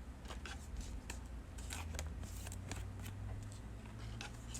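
Trading cards being handled: light, scattered clicks and rustles of card stock sliding and tapping.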